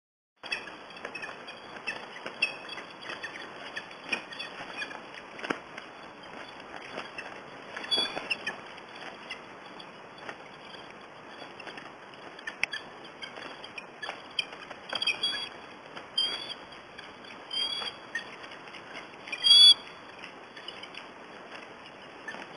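Two bald eagles fighting on the ground: wings beating and scuffling through dry brush and twigs, with short, high-pitched calls scattered through, the loudest near the end, over a steady hiss.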